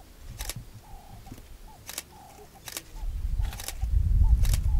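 Sharp clicks about once a second, typical of a camera shutter firing, over faint short chirping calls. A low rumble builds from about three seconds in.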